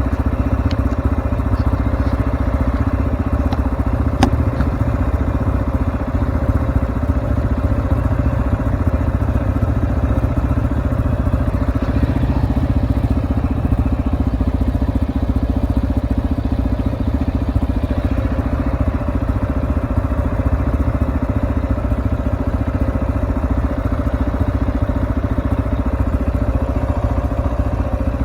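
Cyclone RX3 motorcycle engine running steadily while riding on a trail, with a few sharp clicks in the first few seconds.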